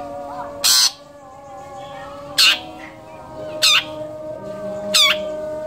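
Long-tailed shrike (cendet) giving four loud, harsh rasping calls, about one every 1.3 seconds, over faint steady tones.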